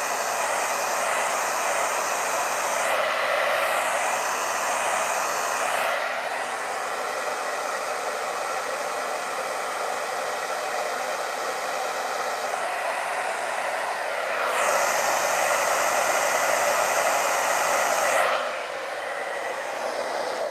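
Hand-held hair dryer blowing steadily over wet poured acrylic paint. It is louder for a few seconds past the middle, then drops off shortly before the end.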